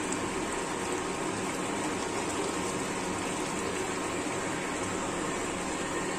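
Noodle broth boiling in a steel pot on an induction cooktop: a steady bubbling hiss, with a faint steady hum underneath.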